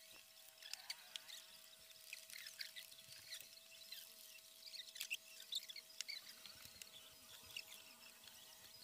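Near silence: faint room tone with a steady faint hum and scattered faint high-pitched ticks.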